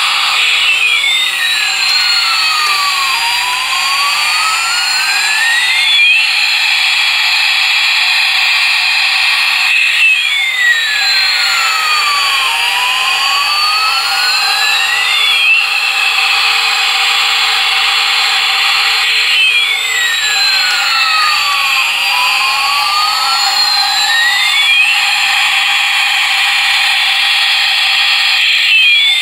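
Battery-operated toy Boeing 777 airliner playing its electronic jet-engine sound effect through a small speaker: a steady high whine with pitch sweeps rising and falling, the loop repeating about every nine seconds.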